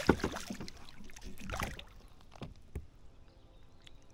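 Hooked smallmouth bass thrashing and splashing at the surface beside a kayak as it is landed by hand. The loudest splash comes at the start, followed by a few scattered smaller ones.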